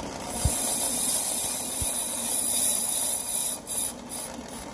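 Brake lathe resurfacing a rear brake drum: a steady machine hum under a loud high hiss from the cut, which drops away about three and a half seconds in.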